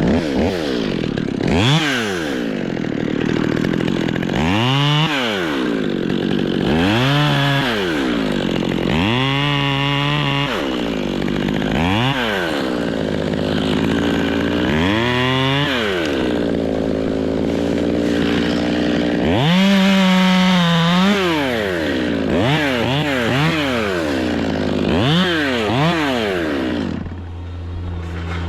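Chainsaw revving up and dropping back about ten times, rising and falling in pitch as it is throttled through cuts, over a steady low engine hum. The revving stops shortly before the end, leaving the low hum.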